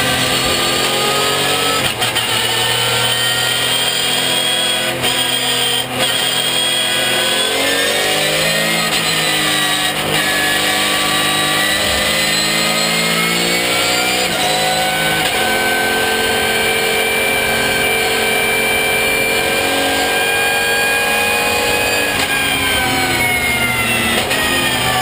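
Porsche 911 GT3 Cup race car's flat-six engine heard from inside the cockpit, revving hard through the gears: the pitch climbs in each gear and drops abruptly at each shift, with a couple of sharp clicks in the first six seconds. The pitch falls steadily near the end as the car slows.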